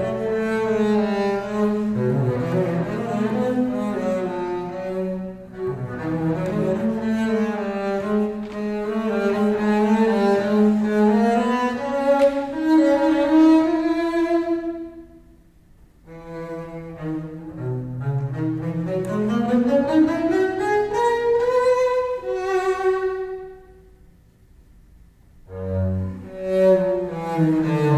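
Bowed double bass playing a slow Adagio melody of long, sustained notes with vibrato. About two-thirds of the way through the line climbs to a held high note, then stops briefly before the playing resumes near the end.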